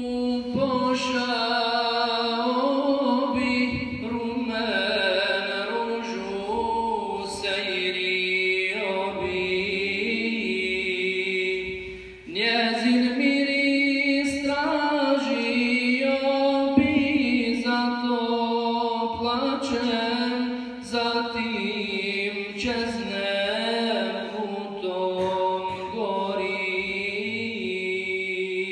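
A man's voice chanting a melodic Islamic recitation in long, ornamented phrases, with short breaths between phrases and a clear break about twelve seconds in.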